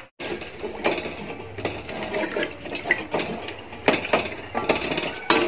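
A spatula stirring chicken pieces in liquid in an aluminium pot, knocking and scraping against the pot's sides and bottom in irregular clicks and knocks.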